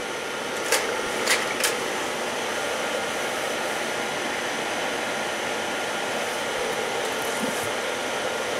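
Kodak Carousel slide projector running with a steady fan noise, with three short clicks about a second in as the tray advances to the next slide.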